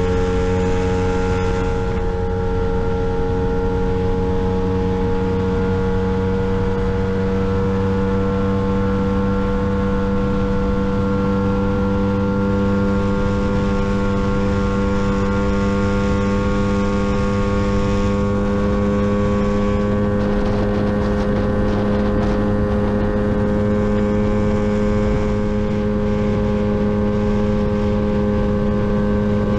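Lambretta GP125 scooter's single-cylinder two-stroke engine running at high revs on a top-speed run, its pitch creeping slowly upward as the scooter gathers speed.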